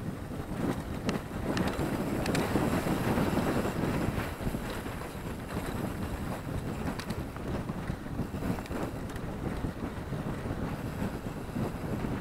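Wind buffeting an action camera's microphone while a mountain bike runs fast down a rough dirt trail, its tyres rumbling and the frame and parts rattling and clicking over the bumps. Loudest in the first few seconds.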